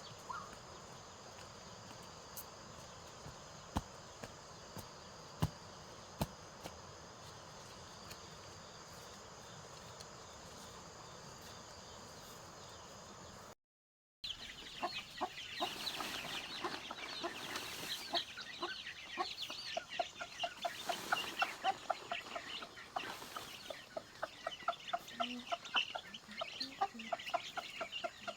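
Insects chirring steadily in the first half, with a few sharp clicks. After a brief dropout about halfway, chickens cluck busily in a rapid, continuous chatter.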